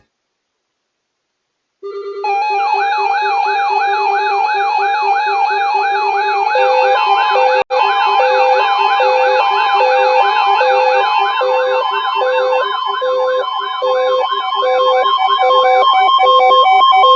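Layered electronic emergency alert tones: a siren-like warble rising and falling rapidly over steady high tones, joined about halfway by a lower repeating beep. The tones start suddenly after about two seconds of silence and cut out for an instant near the middle.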